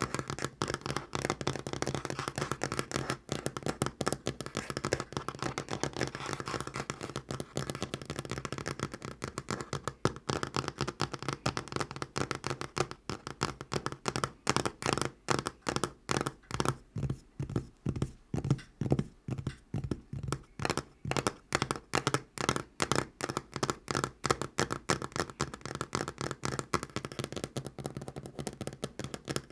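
Natural fingernails tapping fast on a tabletop in a rapid, continuous patter; through the middle the taps come more spaced out and distinct, then crowd together again near the end.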